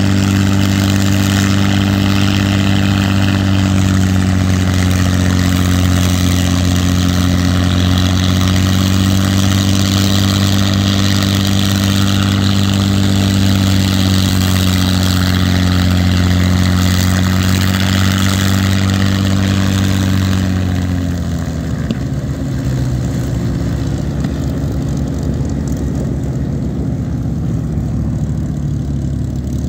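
WWII fighter's piston aero engine on a ground run test, turning its propeller at a steady, fairly high power setting; about 20 seconds in it is throttled back and settles to a lower, less even idle.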